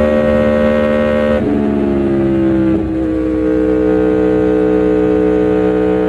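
Aprilia Tuono V4 1100 Factory's V4 engine running hard under way. Its pitch drops in a sudden step about a second and a half in and again near three seconds, then slowly falls.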